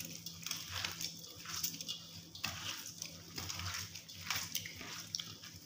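A hand squishing and kneading wet minced meat with onion, herbs and spices in a steel bowl: a soft squelch with each squeeze, about two a second.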